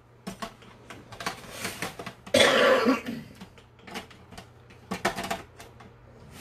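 Eggs clicking and knocking against a glass bowl and against each other as a hand rummages through them, in scattered light taps. About two and a half seconds in, a person coughs once.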